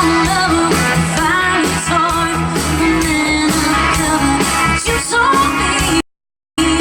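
Live amplified band music: a singer over electric guitar, bass and drums. The sound cuts out completely for about half a second near the end.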